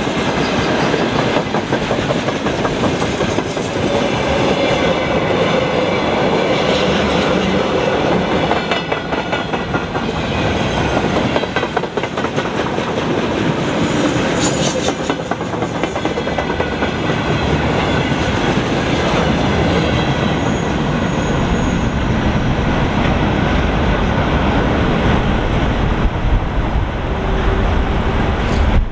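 Freight train wagons rolling past, their wheels clicking steadily over the rail joints.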